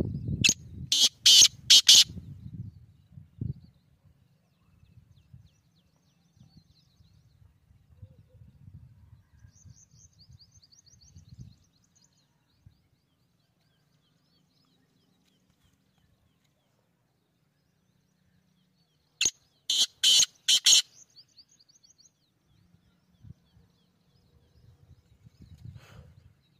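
Black francolin (kala teetar) giving its loud call, a phrase of four or five sharp notes, twice: about a second in and again about twenty seconds in. A faint run of quick, high chirps from a smaller bird comes between the two calls.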